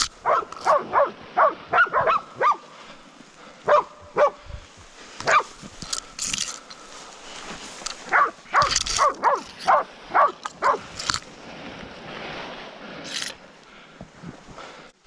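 Pig dogs barking at a bailed-up wild pig, in quick runs of several barks with a few single barks between.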